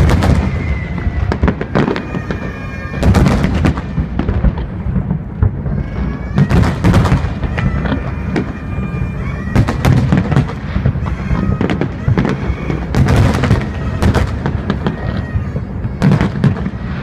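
Aerial fireworks shells bursting in a dense run of booms and crackles over a constant low rumble. The heaviest clusters of bursts come about three, seven, ten and thirteen seconds in.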